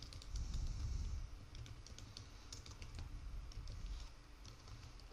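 Computer keyboard typing: a run of quick, irregular key clicks over a low background hum.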